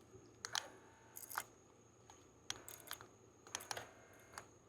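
Scattered light plastic clicks and taps from handling and pressing the buttons of a toy RC fire truck's remote control, some in quick pairs.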